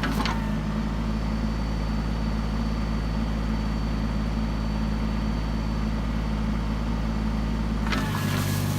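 Kubota L39 tractor's four-cylinder diesel engine running steadily. A few sharp knocks come at the very start, and near the end its note shifts amid some clattering.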